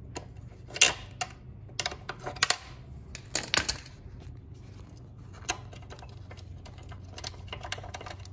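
Sharp metal clicks and taps, in irregular clusters, as a screwdriver works the pivot pin out of a motorcycle's stock foot-peg bracket on a Yamaha XT250.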